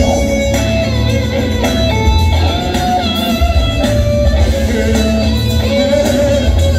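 Live band playing an instrumental passage: electric guitar over bass guitar, drum kit and keyboards, loud and steady.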